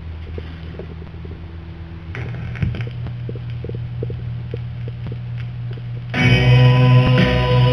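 Wurlitzer 2200 jukebox mechanism humming, with a clunk about two and a half seconds in and then faint regular ticking like record surface noise. About six seconds in, the 45 starts playing loudly: guitar-backed music.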